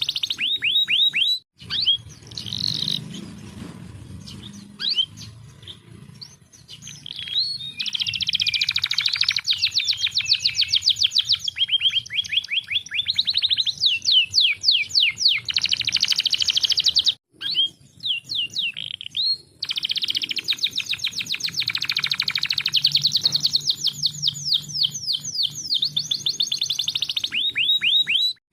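Domestic canary singing: long runs of rapid trills, each made of fast falling notes repeated many times a second, broken by a few short pauses, over a faint low hum.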